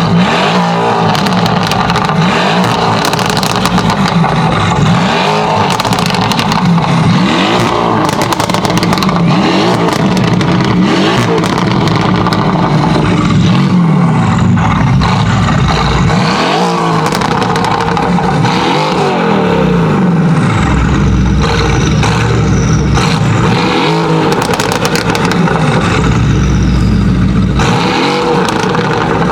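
Mercedes-AMG GT R's twin-turbo V8 through an aftermarket Fi exhaust, loud, revved up and down again and again, with bursts of crackles and pops as the revs fall.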